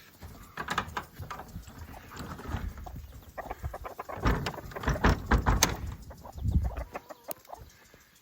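Hens clucking in a chicken coop, mixed with scattered knocks and scuffing that are loudest about four to six seconds in.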